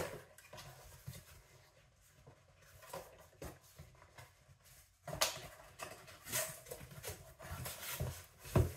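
Cardboard box flaps being pulled open and handled, with scraping, rustling and light taps of cardboard, sparse at first and busier from about halfway through.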